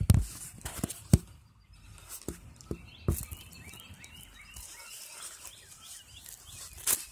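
Small birds chirping faintly in the background, a series of short repeated calls, broken by several sharp knocks and rustles. The loudest knocks come right at the start and about a second in, with another near the end.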